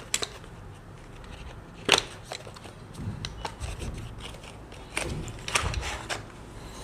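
An SSD's small retail box and its plastic tray being opened and handled: scattered clicks and crinkles, with one sharp click about two seconds in.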